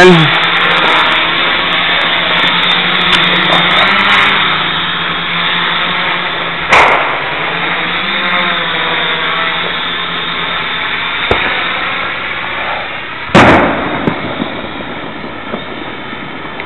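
MX400 quadcopter's electric motors and propellers buzzing steadily, the pitch rising briefly a couple of times. Sharp bangs cut through it, one about 7 seconds in and a louder one about 13 seconds in, with a fainter crack just before the second.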